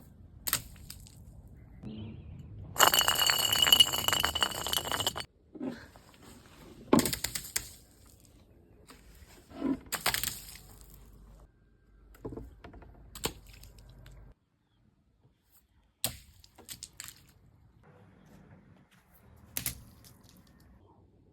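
Glass bottles smashing one after another, a series of separate crashes with tinkling, ringing shards. The loudest is a long crackling shatter about three seconds in that lasts about two seconds, followed by smaller crashes and clinks.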